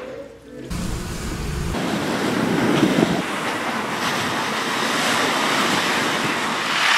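Ocean surf breaking along the shore, with wind rumbling on the microphone, heaviest for about a second near the start.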